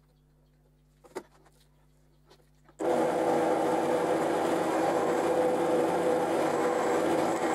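A few light clicks of handled metal tools, then a bench drill press switches on about a third of the way in and runs steadily at speed.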